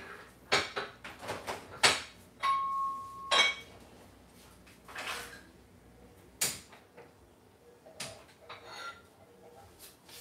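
Kitchen clatter of utensils and dishes being handled: a string of separate clinks and knocks, with a short steady electronic beep about two and a half seconds in.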